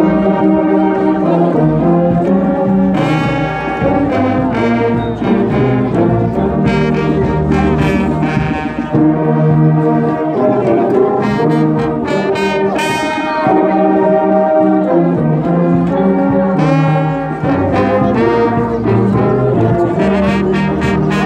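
Brass band led by tubas playing in held chords, the notes changing every second or so.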